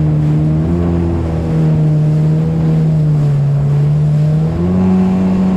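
Waverunner engine running at a steady pitch over a constant hiss, dipping slightly then stepping up a little about four and a half seconds in.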